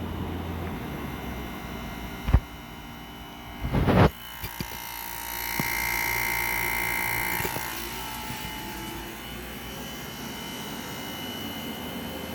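Midea 5,000 BTU window air conditioner running, its fan and compressor giving a steady hum. There is a sharp knock about two seconds in and a louder rattle of knocks near four seconds, as the fan is switched to a between speed. A louder stretch with a steady high whine follows from about five and a half to seven and a half seconds.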